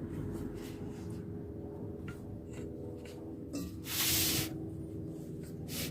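Quiet handling of small pistol frame parts, with a few faint clicks over a steady low hum and one short hiss about four seconds in.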